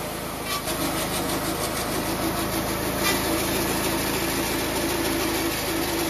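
Wood-Mizer bandsaw mill running, its band blade cutting through a log and striking two nails buried in the wood. A short run of high ticks starts about half a second in, and a single click comes about three seconds in.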